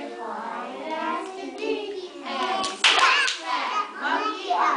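A woman's and a young child's voices talking and singing, with a couple of sharp hand claps about two and a half seconds in, just before the loudest, high-pitched child's voice.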